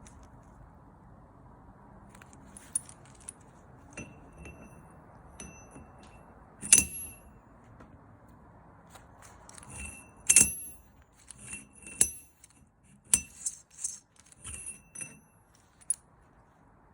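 Small metal parts clinking and tapping against each other, about a dozen sharp clinks with a brief high ring after each, loudest about a third of the way in and again past the middle, with a quick cluster near the end. The parts are most likely rear-axle pinion bearing parts being handled.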